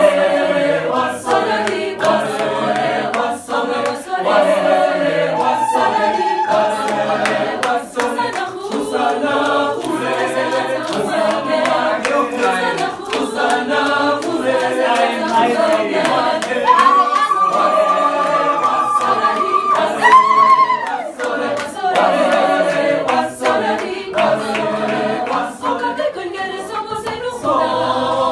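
A choir singing a cappella in close harmony, with click consonants in the words. About two-thirds of the way through, a single high voice holds a long note above the others.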